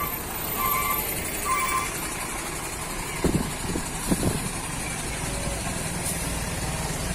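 Large box truck with tandem rear axles driving past close by, its diesel engine and tyres rumbling, with a few clunks between three and four and a half seconds in. Short repeated beeps sound over the first two seconds.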